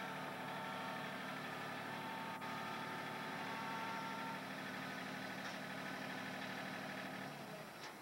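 Compact tractor's engine running steadily, then stopping near the end.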